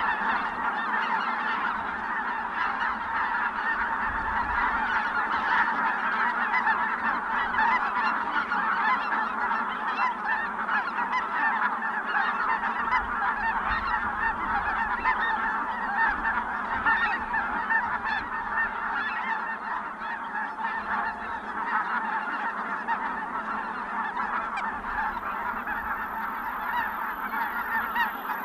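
A large flock of geese, Ross's geese among them, calling all at once in a dense, continuous chorus of overlapping high honks.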